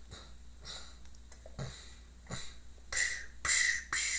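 Mouth-made sound effects for a toy's blows on a paper piñata: a string of short breathy, hissing puffs, faint at first and louder from about three seconds in.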